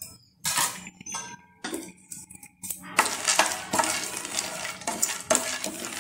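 Peanuts being stirred in oil in a nonstick frying pan with a wooden spatula: separate scrapes and rattles for the first three seconds, then nearly continuous stirring with the nuts rattling against the pan.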